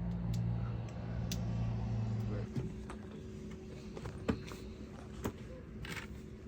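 Irregular small clicks and taps of cartridges being thumbed into a firearm magazine, the loudest a little past the middle. A steady low hum sounds underneath and stops about two and a half seconds in.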